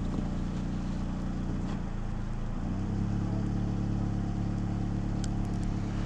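A vehicle engine running steadily, its low hum stepping up slightly in pitch and level about two and a half seconds in.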